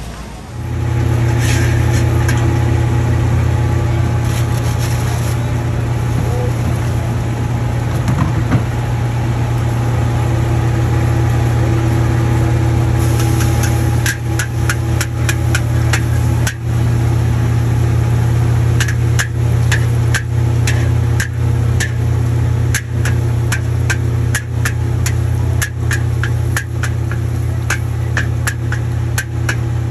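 Steady low roar of a hawker's wok stove, with a metal spatula scraping and clacking against a black iron wok as egg is stirred in hot oil for fried flat rice noodles (kuey teow). The clacks start about halfway through and come about twice a second.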